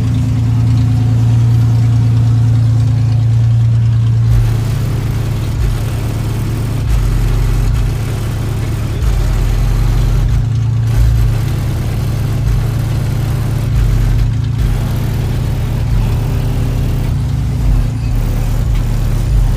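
Heavy bass from a car's subwoofer sound system playing music: a loud, deep bass line whose lowest notes change every second or so.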